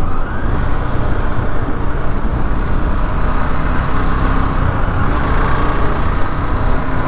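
Steady wind rush on the microphone while riding a KTM RC 390 downhill, with its single-cylinder engine running underneath.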